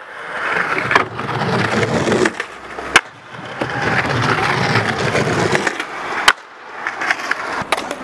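Skateboard wheels rolling over stone paving slabs, with sharp clacks of the board hitting the ground: a light one about a second in, a loud one at about three seconds, and another just after six seconds.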